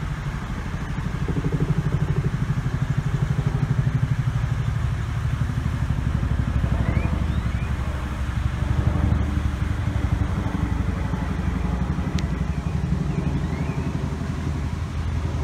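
Boeing CH-47 Chinook tandem-rotor helicopter flying overhead, its rotor blades beating in a rapid, steady pulse over the low rumble of the engines.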